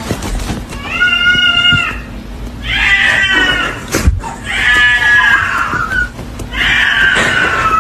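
A cat meowing loudly four times in long, drawn-out calls, with a sharp click about halfway through.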